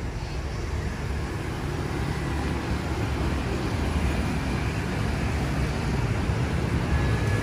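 Street traffic noise: a steady rumble of passing vehicles that grows slowly louder.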